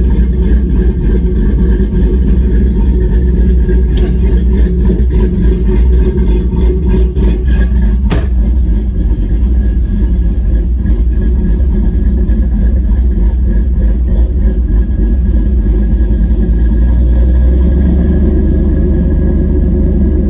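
LS V8 engine swapped into a Ford Lightning pickup, running steadily as the truck drives, with a single sharp click about eight seconds in.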